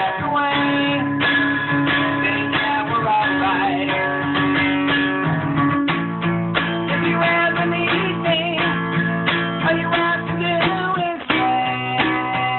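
Acoustic guitar strummed steadily through a song's chord progression, the chord changing about halfway through and again near the end.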